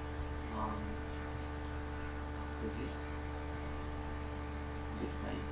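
Steady electrical mains hum, several steady tones at once, with a few faint brief sounds over it.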